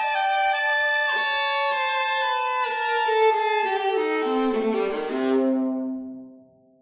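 Viola and clarinet playing a duet in a slow, falling line. It settles onto a low held note that dies away to near silence near the end.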